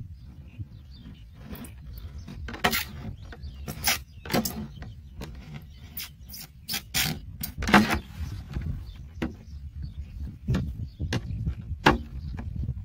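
Thin plastic bottle crackling and clicking as it is cut and its flaps pushed in by hand: irregular sharp crackles, thickest about midway, over a steady low rumble.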